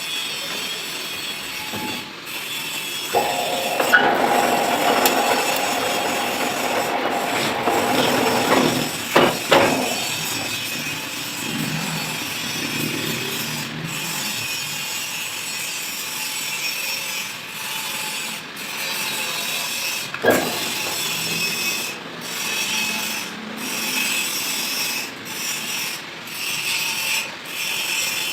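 Manual lathe running while a cutting tool scrapes a thread into a metal workpiece, a steady rasping cut. It grows louder for a few seconds and is broken by a couple of sharp clicks.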